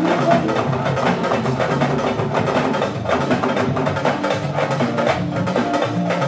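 Live band playing upbeat dance music: busy hand-drum and kit percussion over bass guitar and keyboard.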